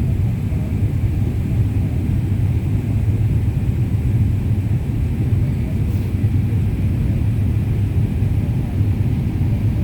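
Steady low rumble of an airliner's jet engines and rushing air, heard inside the passenger cabin.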